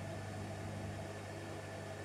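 Bosch WAQ28470GB front-loading washing machine on an empty spin, its drum and motor making a steady hum and whir while the drum speeds up toward 1400 rpm.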